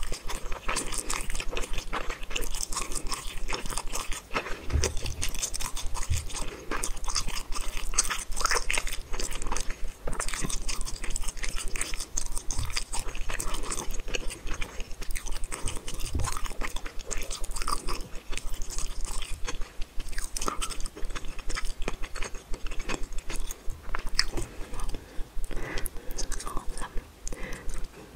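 A person chewing spicy tteokbokki close to the microphone: a steady run of small mouth clicks and smacks.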